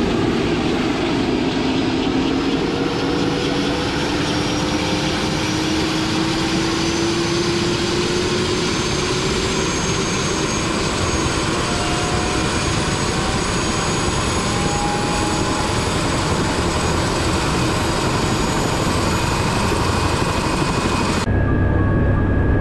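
Turbine helicopter winding up on the ground, a loud steady rush with a whine that climbs slowly in pitch as the engine and rotor spin up. Near the end it changes abruptly to a deeper, heavier drone heard from inside the cabin.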